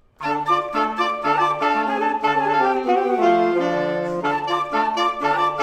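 Two woodwind instruments playing a lively duet: a low part in short, repeated notes under a higher, moving melody, with a saxophone-like tone. It starts about a fifth of a second in.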